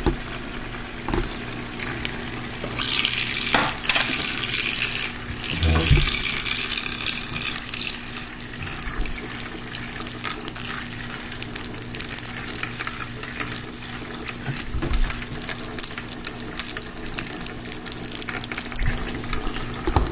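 Discovery Toys Tornado Lab water-vortex toy running: a steady motor hum under swirling, churning water, with small clicks throughout. Two loud hissing rushes come in the first seven seconds.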